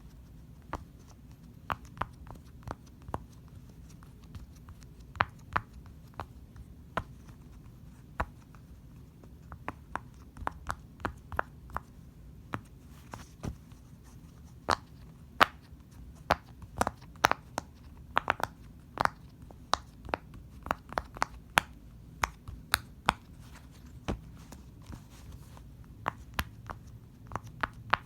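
Fidget toys being clicked and handled: sharp, irregular clicks and taps, sparse at first, then coming in quicker runs from about ten seconds in.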